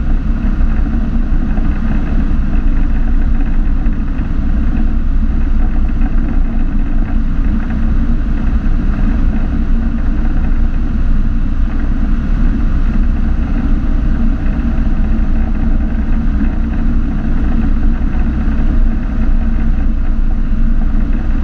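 Tecnam P92 Echo light aircraft's engine and propeller running steadily, heard from inside the cockpit, a loud low drone with cabin wind noise on final approach to land.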